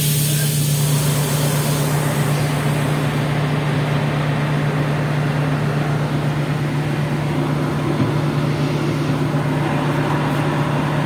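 NefAZ 5299 city bus standing at a stop with its engine idling, heard from inside the cabin as a steady low hum. A loud hiss of compressed air starts suddenly at the beginning and dies away over about three seconds.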